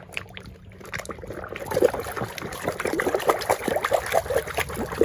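Water trickling and splashing as a plastic toy animal is rinsed clean. It starts faint and grows busier about a second and a half in.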